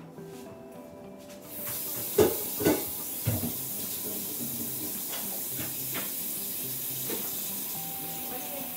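Kitchen tap turned on about a second and a half in, water running steadily. A few clunks of dishes come soon after.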